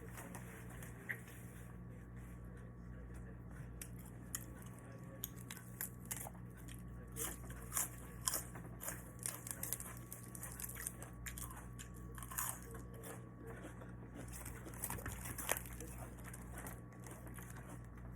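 A person chewing and biting crunchy food close to the microphone, with irregular crisp crunches and smacks that come thickest in the middle of the stretch.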